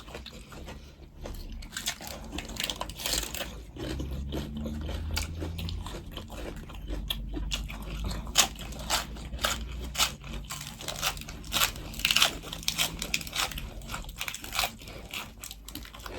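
Close-up eating sounds: a person chewing and crunching food, with many irregular sharp crunches and mouth clicks. A low steady hum sits under them for several seconds in the middle.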